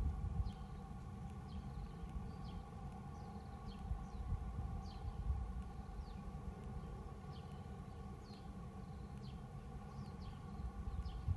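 Female Japanese tit calling: a run of short, high notes that each drop quickly in pitch, about one or two a second, over a steady low rumble.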